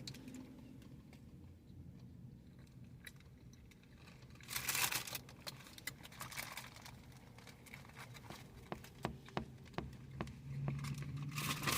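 Quiet eating sounds: a paper food wrapper crinkling and rustling, with scattered small clicks of chewing and handling and a louder rustle about halfway through.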